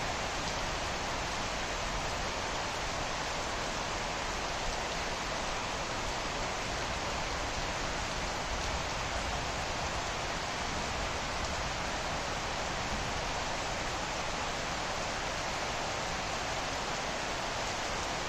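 Steady rain falling on trees and leafy shrubs, an even hiss with no breaks.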